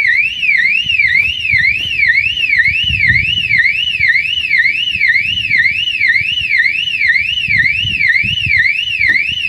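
Peugeot 407 factory alarm siren wailing, a fast up-and-down sweep about two and a half times a second, set off by a newly connected shock sensor, which shows the sensor is working. The siren cuts off suddenly at the very end.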